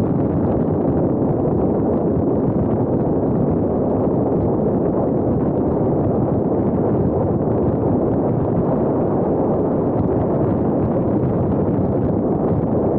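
Wind buffeting an action camera's microphone on a road bike riding at speed: a loud, steady rush of noise.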